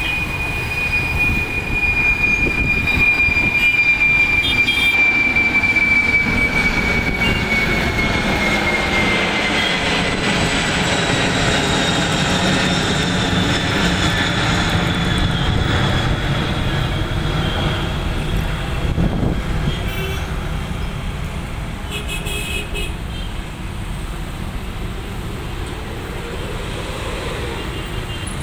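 Jet engines of a four-engine Boeing 747 freighter climbing out after takeoff: a steady roar with a high whine that slides down in pitch over the first ten seconds, then slowly fades as the aircraft moves away.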